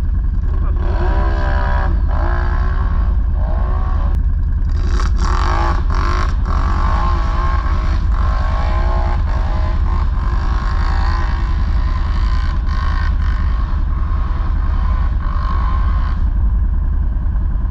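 ATV engines revving up and down over and over, over a steady low rumble, with a few short clatters partway through.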